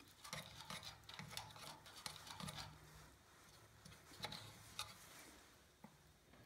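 Faint small clicks and light taps of hands working a copper pipe fitting during a soldering job, with a faint low hum that comes and goes.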